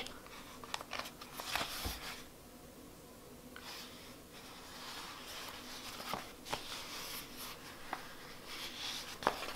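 Soft rustling and light taps of hands handling and turning a leather Traveler's Notebook cover, with a quieter pause about two seconds in.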